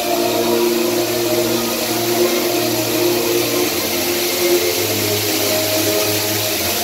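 Rushing water from a theme-park ride's artificial waterfall and flume, over a steady low droning hum that shifts in pitch a few times.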